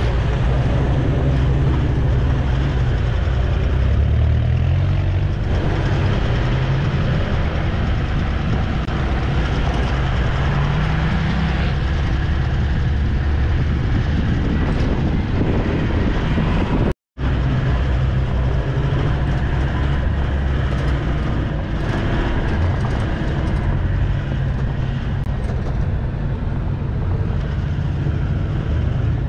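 Off-road vehicle's engine running as it drives a dirt track, heard from inside the cab with tyre and body noise. The engine note rises a couple of times, and the sound cuts out briefly once, about two-thirds of the way through.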